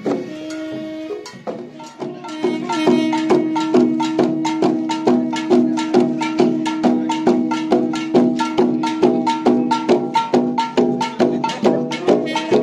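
Garo long barrel drums (dama) beaten in a fast, even rhythm. From about two seconds in, a blown horn joins them, holding one steady note over the beat.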